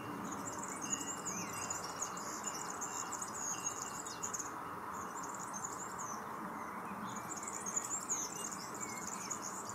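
European serin singing its high, rapid song in bursts: one long phrase of about four seconds, a short phrase just past the middle, and another starting about seven seconds in. A steady background hiss lies under it.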